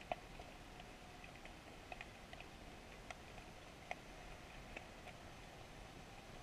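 Underwater ambience picked up through a GoPro's housing: a faint steady hiss with scattered sharp clicks, about two a second at irregular intervals, the loudest just after the start and about four seconds in.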